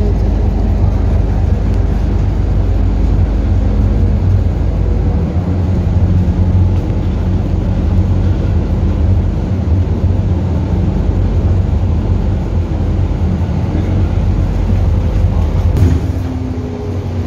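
City bus running along the road, heard from inside the passenger cabin: a steady engine drone and low road rumble with a constant hum.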